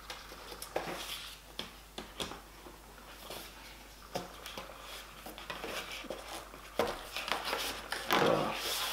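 Handling noises: scattered light clicks and rubbing as small items are moved and handled on a desk, with a louder rustle near the end.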